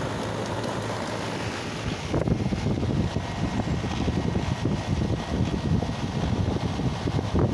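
Steady low hum and hiss, then from about two seconds in, gusty wind buffeting the microphone with a fluttering low rumble.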